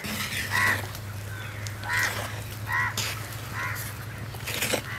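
Crows cawing, about four short caws, over soft scraping of a wooden spatula stirring thick jaggery-and-chana-dal filling in a clay pot, with a steady low hum underneath.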